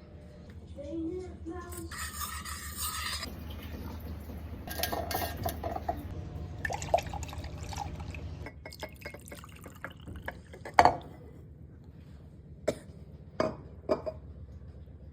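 Liquid poured briefly into a glass, then a handful of sharp glass-and-utensil clinks, the loudest near the middle.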